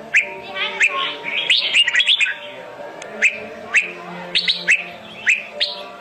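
Red-whiskered bulbuls calling: a string of short, sharp chirps, thickest in a quick cluster about two seconds in.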